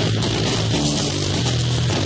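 Live band playing loud heavy rock: distorted electric guitar and bass holding chords that shift every fraction of a second, over a constant wash of cymbals.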